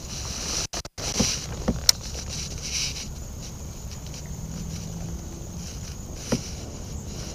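A fishing rod cast and retrieve: a few sharp clicks in the first two seconds as the lure goes out, then the reel being cranked with a faint steady hum, and another click a little after six seconds.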